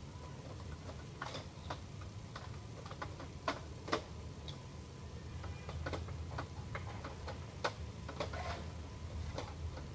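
Irregular clicks and clacks of the plastic parts of an Epson L210 inkjet printer being handled and fitted by hand, with a few sharper knocks, over a low steady hum.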